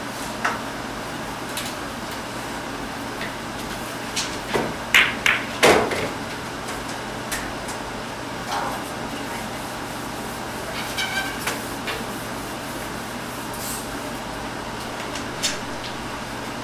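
Pool balls clicking and knocking on a billiard table during a shot. There is a single click about half a second in and a cluster of louder knocks from about four to six seconds in, with a few lighter clicks later, over a steady low hum.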